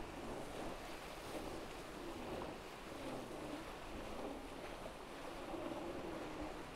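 A Tornado racing catamaran sailing at speed: water rushing along the hulls and wind over the microphone, steady throughout, with a faint wavering hum underneath.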